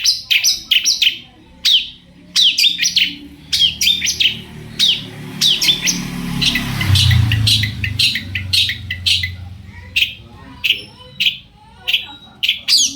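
Long-tailed shrike (cendet) singing in a fast, loud run of short, sharp chattering notes, each sweeping down in pitch, delivered in quick bursts with brief pauses. A low rumble swells and fades in the middle.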